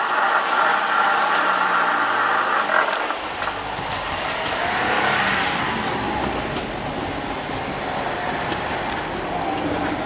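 Road vehicles driving over a railway level crossing: an engine idles, then cars pull away and pass close by, loudest about five seconds in.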